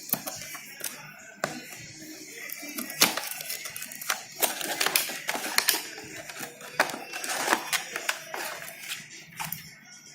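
Packaging being handled as a box is unpacked: irregular crinkling and rustling with many small clicks and taps.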